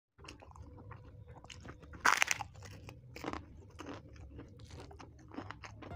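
Crisp papad (lentil wafer) crunching, with chewing and small crackles throughout. The loudest crunch comes about two seconds in and another a little after three seconds.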